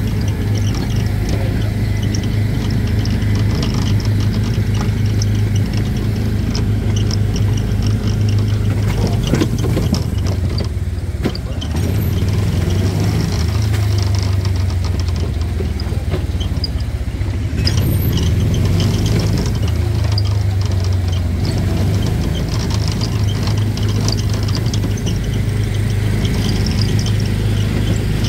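Small gasoline engine of an Autopia ride car running with a steady low drone, easing briefly about ten seconds in.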